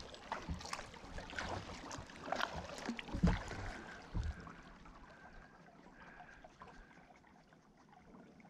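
Kayak paddle strokes: the blades dipping and splashing water, with dripping and a few sharp knocks, dying down about halfway through as the kayak glides.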